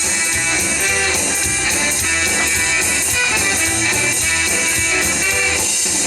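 Rock song playing, an instrumental stretch between sung lines, led by guitar.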